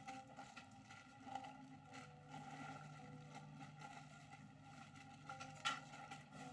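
Faint steady hum, with a single sharp click near the end.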